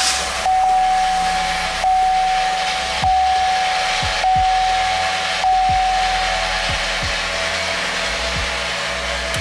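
Chevrolet Silverado pickup engine just started and idling, with a steady rushing hiss over a low hum. A dashboard warning chime sounds in a repeating tone about every second and a quarter, five or six times, and stops about six seconds in.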